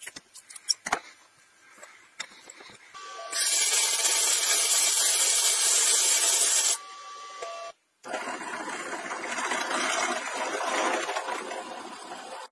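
Scissors snipping a few times, then a loud steady hiss lasting about three and a half seconds, then, after a brief break, a drill press boring into steel square tube with a steady drilling noise.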